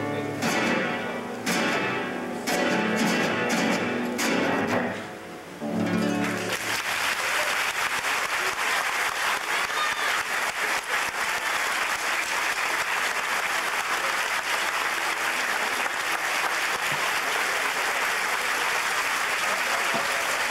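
Paraguayan harp playing the closing strummed chords of a piece, the last chord about six seconds in, followed by steady audience applause.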